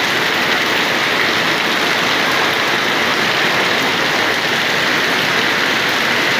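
Heavy rain falling steadily, a dense even hiss of raindrops hitting surfaces.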